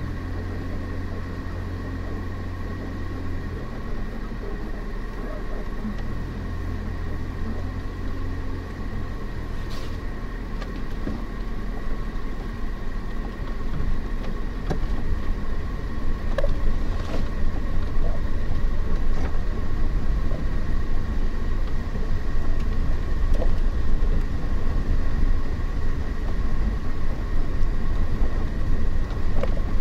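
Kei camper van's small engine running at low speed, heard from inside the cab, as the van creeps over bumpy ground. The engine note shifts in steps early on, and the sound gets louder and rougher from about halfway in, as the van moves onto a dirt track. A faint steady high whine sits over it throughout.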